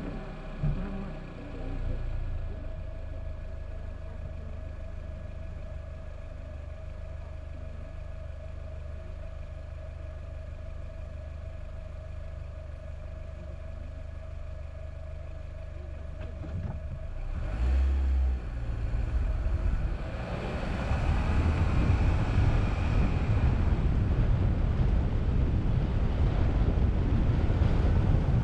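Car engine running steadily with a low rumble and a constant hum while the car is almost at a standstill. About 18 seconds in there is a low thump, then a louder rumble of tyres on the road and wind buffeting the microphone as the car drives on.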